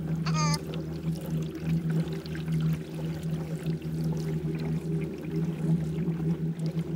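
Electric trolling motor running steadily with a low hum, water swishing and trickling around the boat. About half a second in, one brief high warbling chirp.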